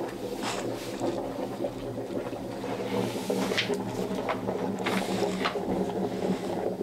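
Oak ribs being pushed by hand into a plastic steam pipe, giving a few sharp knocks and scrapes of wood on the pipe, over the steady running of the steamers that feed it.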